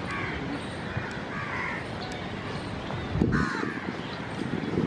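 Crows cawing in the trees, three short falling caws about a second and a half apart, over a steady low outdoor rumble.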